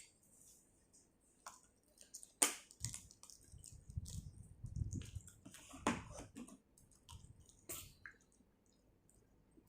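Close-up eating sounds of spicy seafood papaya salad: chewing and crunching with scattered sharp clicks, and a duller, lower stretch of noise in the middle.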